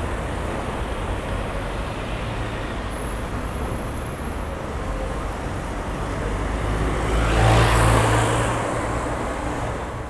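Road traffic on a city street: a steady rush of passing cars, with one vehicle passing close about seven to eight seconds in, its engine hum and tyre noise swelling to the loudest point and then fading away.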